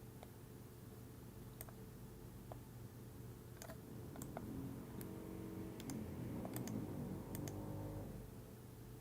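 Scattered single clicks of computer mouse and keyboard input, about one every second, over a low steady hum that swells into a drone of several held tones for a few seconds in the middle.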